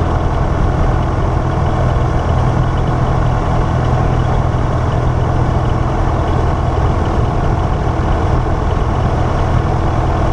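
Piper Archer III's four-cylinder Lycoming O-360 engine and propeller idling steadily, heard from inside the cockpit.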